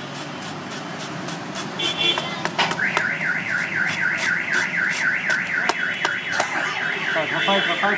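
Electronic alarm siren, like a car alarm, warbling up and down rapidly in a repeating pattern, starting about three seconds in. Scattered clicks and clatter sound beneath it.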